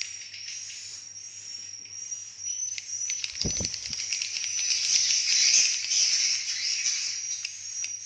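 Edible-nest swiftlets twittering at their night roost: dense high chirps and rapid clicking trills that grow busier and louder after about three seconds. There is a brief low thump about three and a half seconds in.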